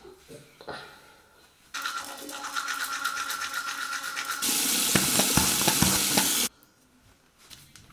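Electric toothbrush buzzing steadily for a couple of seconds, then a louder rush of running tap water that cuts off suddenly.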